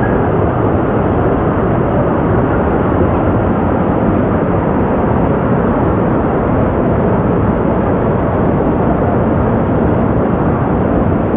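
Rushing white water of river rapids, a loud steady noise with no breaks.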